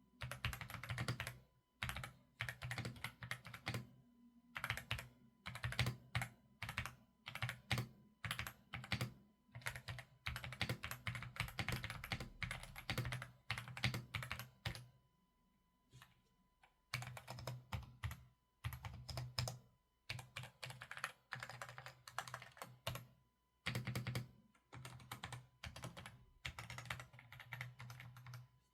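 Typing on a YINDIAO Y95 mechanical keyboard fitted with Outemu Brown tactile switches: quick runs of key clicks in bursts, pausing for about a second and a half just past the middle.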